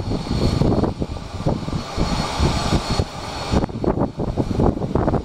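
Wind buffeting the microphone in irregular gusts, over the steady high whine of an Avro RJ100's four turbofan engines as it taxis.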